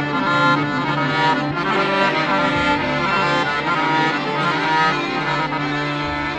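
Arab orchestral music in an instrumental passage without singing: a melody line, which the tagger hears as accordion, played over a steady held bass note.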